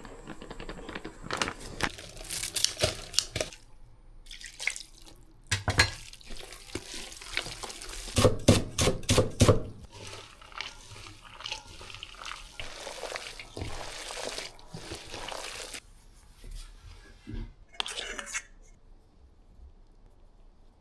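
A run of kitchen food-preparation sounds from dumpling making: scattered knocks and taps, stretches of running or splashing water, and a quick series of sharp knocks about eight seconds in. It goes quiet near the end.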